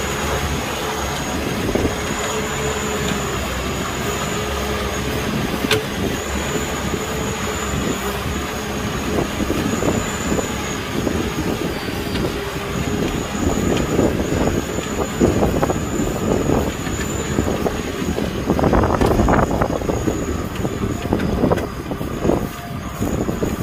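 Kubota M6040 tractor's diesel engine running steadily under load while pulling a disc plow through wet paddy mud. A steady high squeal runs through the first half, and irregular clanking comes in the second half.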